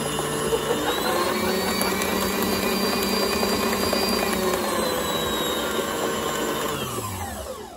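Electric stand mixer running, its beater turning through thick cheesecake batter in a stainless steel bowl. The motor's pitch rises about a second in, eases back down around five seconds, then winds down and stops at the very end.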